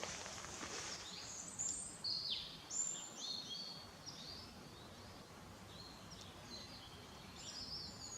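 Small birds chirping and twittering in quick, high notes, busiest in the first four seconds, with a few more calls near the end, over a faint background hiss.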